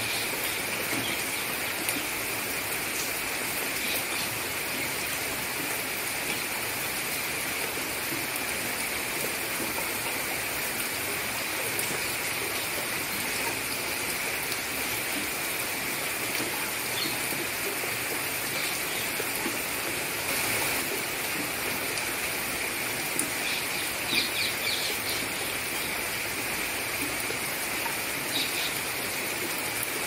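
Steady rain falling on the surface of a lake, an even hiss of drops on water. A few short bird chirps come through over it, most of them in a brief cluster about three-quarters of the way in.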